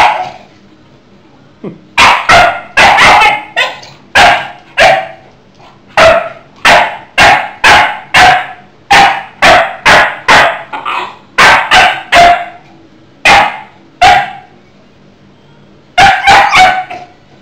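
Shar-pei barking at its owner in a long string of short barks, about two a second, starting about two seconds in, with a pause of about two seconds before a last quick burst of three barks near the end.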